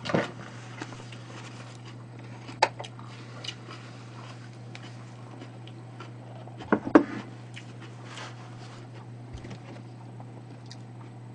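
A heavy black pot of porridge being handled: a few light knocks and clatters, loudest a pair of clunks about seven seconds in as the pot is set down on a wooden trivet, over a steady low hum.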